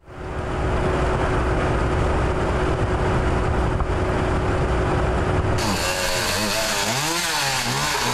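A steady rumbling noise with a constant hum. About five and a half seconds in it changes to a chainsaw revving up and down repeatedly.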